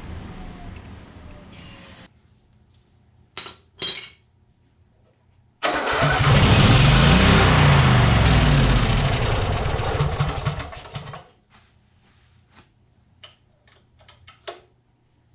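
A small engine starts abruptly about six seconds in and runs loudly for about five seconds, its pitch rising and falling, then dies away. It is preceded by a hiss that stops about two seconds in and two sharp clicks, and followed by a few light clicks.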